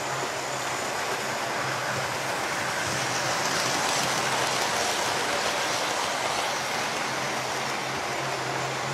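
Electric model trains running on their track: a steady rolling rumble of wheels on the rails over a low steady hum. It swells for a few seconds in the middle as a train passes close by.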